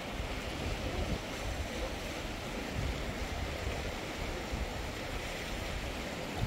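Steady rush of a fast-flowing river, with wind buffeting the microphone.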